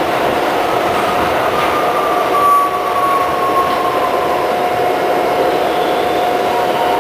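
Westinghouse R68 subway train heard from inside the car as it runs out of the tunnel into a station: steady rail rumble with a constant hum, and a whine that falls in pitch over a few seconds about a second in.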